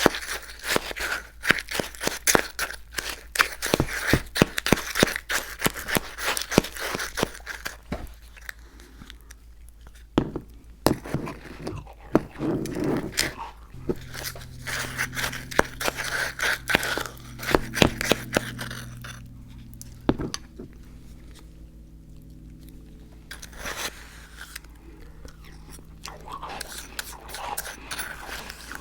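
Close-miked crunchy chewing and biting, dense sharp crackles for the first half and sparser ones later, over a steady low hum that comes in about halfway through.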